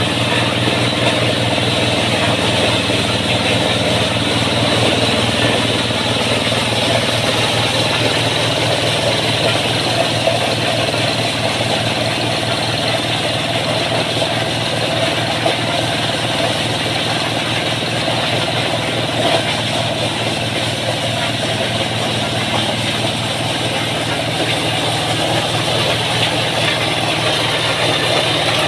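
Kubota-powered corn sheller running steadily under load: the engine hums at a constant speed beneath the dense rattle of cobs being stripped of their kernels.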